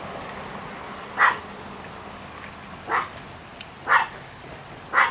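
A dog barking: four short barks, about a second apart.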